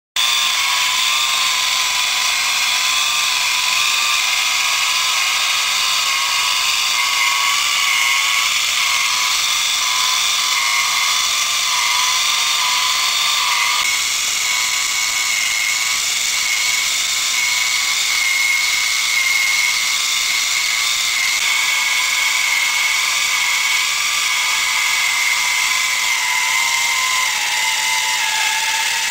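Small brushed DC motor driving a plastic worm and gear in a model crawler tractor, running with a steady high-pitched whine. Near the end the whine drops slightly in pitch as the supply voltage is turned down to under 9 volts.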